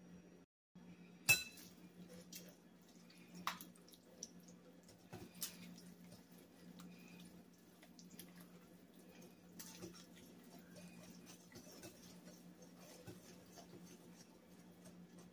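A wire whisk beating batter in a ceramic bowl: faint, irregular clinks and ticks of the wires against the bowl over a steady low hum, with a sharper knock about a second in.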